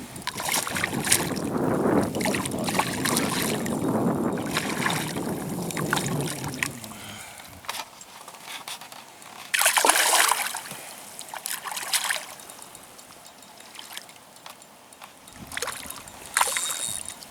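Water splashing and sloshing beside a canoe as a hooked brown trout is played: a rough, sustained splashing for the first several seconds, then a few separate sharp splashes.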